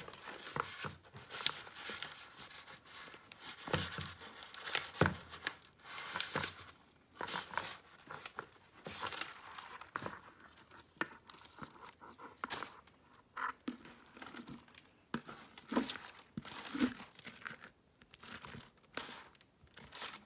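Parchment paper crinkling and rustling in irregular crackly bursts as it is handled on a tabletop.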